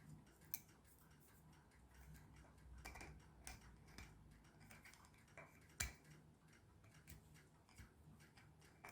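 Near silence with scattered faint clicks and taps from a 3D-printed plastic clamp being handled; the sharpest click comes just before 6 seconds in.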